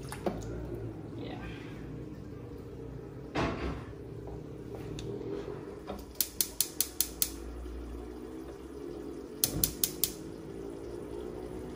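An enamelled pot set down on a gas stove's grate with a knock, then the stove's spark igniter ticking in two quick runs, about six ticks and then four, as the burner is lit.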